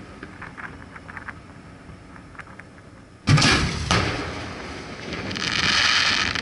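Aerial firework shells heard from the launch barge: faint scattered crackles, then a sudden loud bang about three seconds in with a second thump just after. A long hiss swells up near the end.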